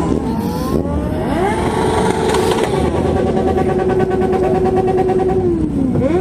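Several motorcycle engines revving at walking pace, their pitch rising and falling. About three seconds in, one engine is held at steady high revs for a couple of seconds, then drops and is revved up again near the end.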